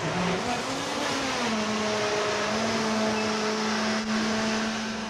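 A machine's motor running with a steady hum over a hiss. Its pitch rises and dips back in the first second and a half, then holds steady.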